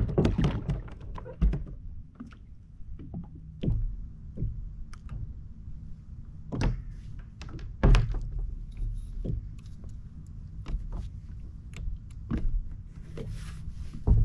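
Irregular knocks and thunks on a fishing kayak's hull and gear as a hooked sea trout is brought aboard, over a low steady rumble.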